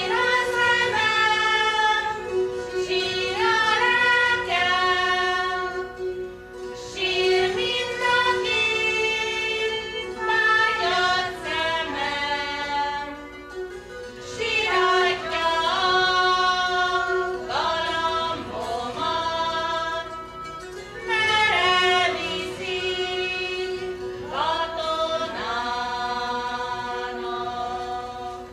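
A Hungarian folk song sung by women's and girls' voices, accompanied by citeras (Hungarian zithers) that hold a steady drone note beneath the melody. The song moves in sung phrases with short breaths between them.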